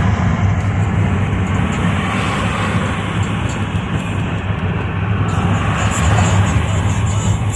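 Pickup truck cab noise while driving at highway speed: a steady, low engine and road drone.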